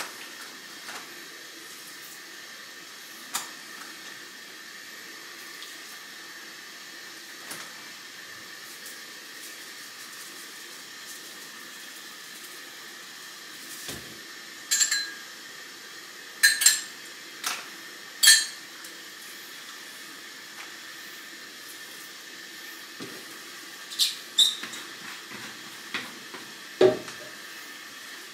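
Kitchen handling sounds: scattered light clicks and knocks of a plastic food container and utensils being handled on the counter, a few sharper clatters in the second half, over a steady background hum.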